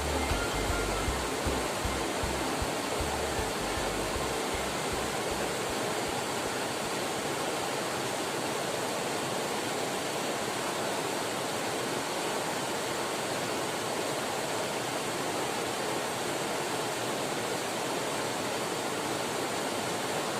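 Steady rush of a flowing river. A low beat of background music fades out over the first few seconds.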